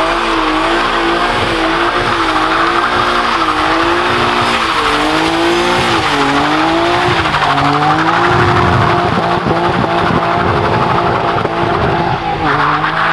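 BMW E46 3 Series coupé spinning its rear wheels in a slide, the engine held at high revs with its pitch wavering up and down while the tyres squeal. After about eight seconds the engine note drops lower as the car pulls away.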